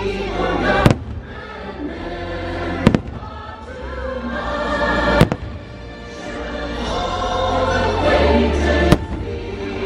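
Fireworks bursting in a show, four sharp booms about two to four seconds apart, over the show's soundtrack music with a choir singing.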